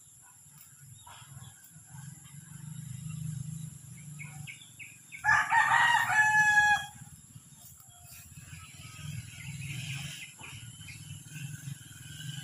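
A rooster crowing once, a crow of about a second and a half: a few short notes running into one long held note. It comes about five seconds in and is by far the loudest sound, over a faint low steady rumble.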